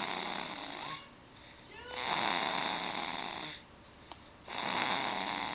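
Snoring in a regular rhythm: long, breathy snores roughly every two and a half seconds, with quieter gaps between. One snore ends about a second in, a second runs from about two to three and a half seconds, and a third begins near the end.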